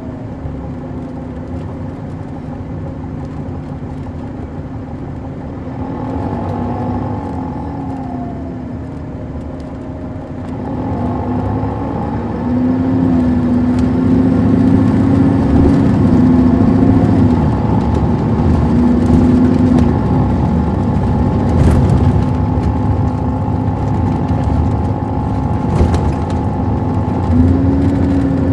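Caterpillar C13 ACERT diesel engine of a 2006 MCI D4500CL coach, driving through its Allison B500R automatic transmission, running under way. Its pitch rises and falls several times as the coach speeds up and the gearbox shifts, and it grows louder about halfway through as the coach pulls harder.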